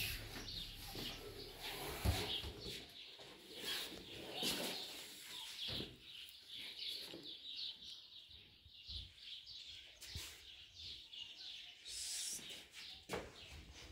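Birds chirping with many short, high calls, with a few scattered knocks.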